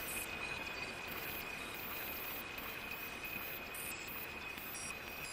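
Sequential Prophet-6 analog synthesizer playing a noise-based ambient patch: a steady hiss-like wash with one high tone held through it, and faint higher glints that switch on and off irregularly.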